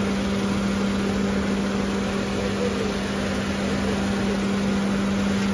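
Maruti Suzuki Celerio's engine idling steadily with a constant hum, heard from over the open engine bay.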